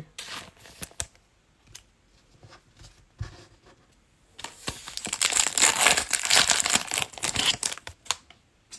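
Foil wrapper of a Playoff Football trading card pack being torn open and crinkled, a loud crackling tear of about three and a half seconds starting about halfway in. A few light taps and clicks come before it.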